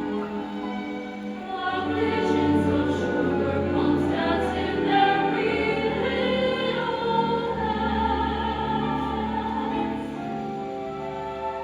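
A choir singing, with long held notes that change pitch from note to note.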